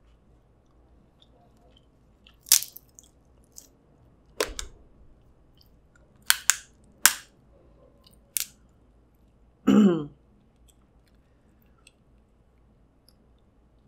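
Close-miked eating of snow crab: a handful of sharp, wet clicks and smacks from mouth, fingers and crab meat, a second or two apart, over quiet chewing. A short hummed 'mm' comes about ten seconds in.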